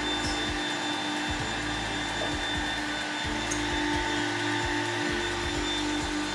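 Edge-banding machine running with its hot-air blower, feed rollers and trimming router motors all switched on: a steady whirring hiss over a constant hum.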